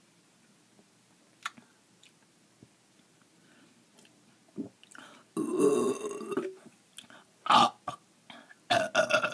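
A person burping deliberately: a loud burp lasting about a second, a little past halfway, then several shorter loud bursts near the end.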